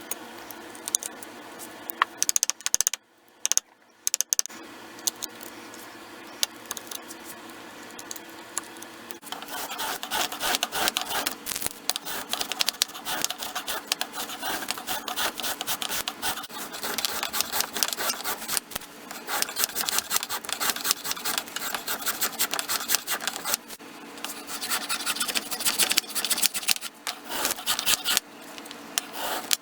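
Wooden rifle handguard being shaped by hand with a rasp: a few handling clicks at first, then from about nine seconds in a long run of rapid scraping strokes.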